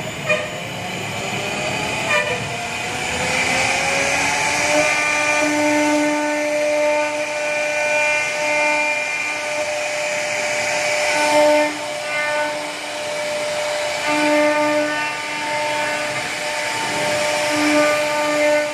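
CNC router spindle whining as it carves wood. The pitch rises over the first few seconds as the spindle spins up, then holds as a steady tone that swells and dips as the bit works through the wood.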